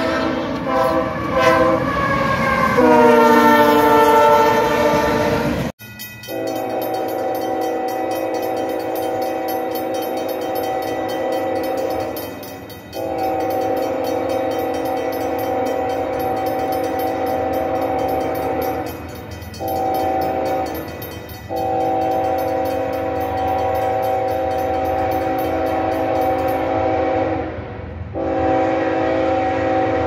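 Freight locomotive air horns. A multi-chime horn sounds with its pitch sliding down and cuts off abruptly about six seconds in. Then a second locomotive's horn sounds a series of long blasts with one short blast between them.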